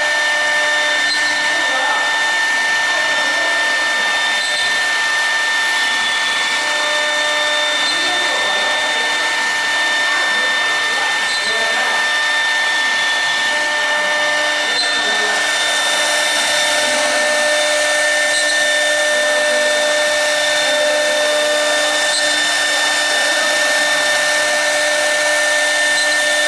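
CNC router spindle running steadily, giving a constant high-pitched whine over a rushing noise.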